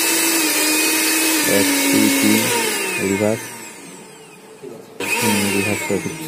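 Billion 550-watt mixer grinder's motor running unloaded with no jar fitted, a high steady whine. About three seconds in it is switched off and winds down with a falling whine. About five seconds in it is switched on again briefly and winds down once more near the end.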